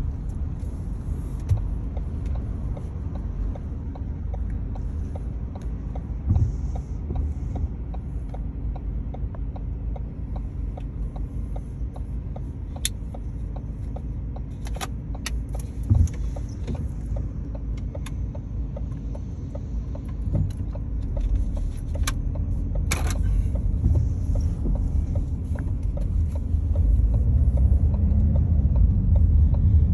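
Car driving, heard from inside the cabin: a steady low road-and-engine rumble with scattered small clicks and a few sharper knocks, getting somewhat louder near the end.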